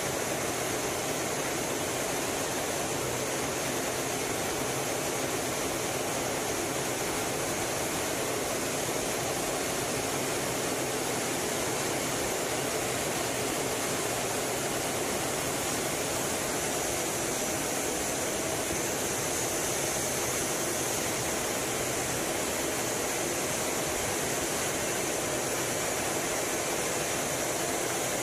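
Steady rushing noise inside the cockpit of a Blue Angels F/A-18 Hornet in flight: airflow and jet noise through the canopy, with a constant hiss and no change in level.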